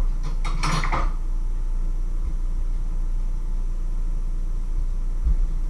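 A steady low hum, with a short clatter of something being handled under a second in.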